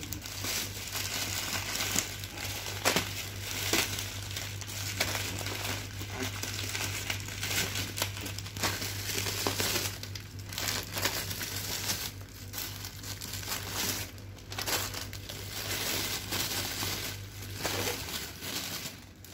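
Plastic crinkling and rustling, irregular and continuous, as a black plastic bag is handled and plastic-wrapped packs of disposable face masks are pulled out and set down. A steady low hum runs underneath and stops near the end.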